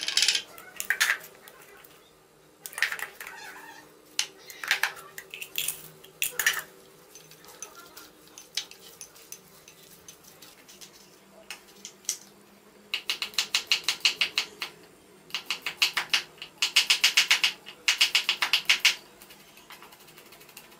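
Chopsticks and a spoon clinking and scraping against a ceramic bowl as sliced meat is seasoned and stirred. Later come several runs of fast, even tapping, each lasting a second or two.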